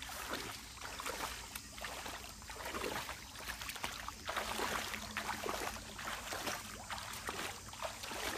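People wading through a shallow stream, water splashing and sloshing around their legs with each step in an uneven run of small splashes.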